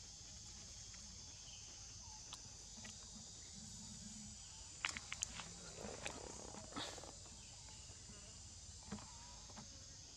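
Steady high-pitched chorus of insects such as crickets. A few sharp clicks and a short rustle come about halfway through.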